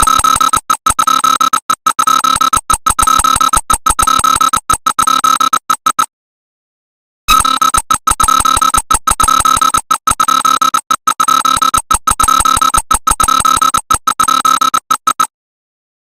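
Loud, harsh electronic emergency alert alarm: one steady high tone over a hiss, choppy with rapid dropouts, cutting out for about a second twice, around six seconds in and near the end.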